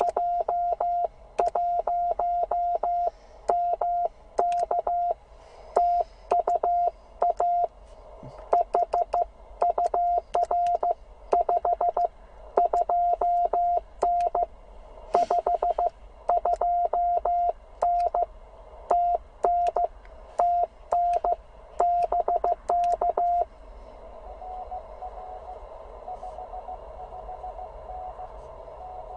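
Morse code (CW) from a Penntek TR-45L HF transceiver: one steady mid-pitched tone keyed on and off in quick dits and dahs. About three-quarters of the way through the loud signal stops, and a much fainter Morse signal carries on over band hiss.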